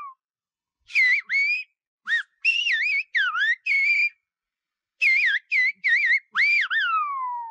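Silbo Gomero, the whistled language of La Gomera: a man whistles a sentence through cupped hands in loud notes that glide up and down, broken into short phrases, in two runs with a pause about halfway. The whistled message means "bring me a kilo of tomatoes from the village shop".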